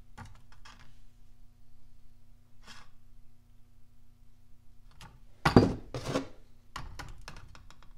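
Datsun L28 connecting rods clunking and clicking as they are handled on a wooden workbench and digital scale, lifted off and set down. The loudest clatter comes about five and a half seconds in, followed by a few lighter clicks.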